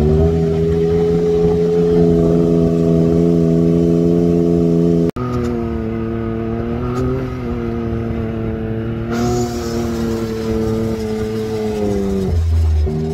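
Can-Am Maverick X3 side-by-side's turbocharged three-cylinder engine running at a steady cruise. Near the end its note dips as the throttle eases off, then picks up again.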